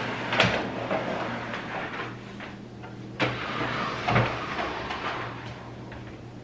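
Sewing machines being slid across a wooden tabletop and set down: scraping with a few knocks, over a faint steady hum.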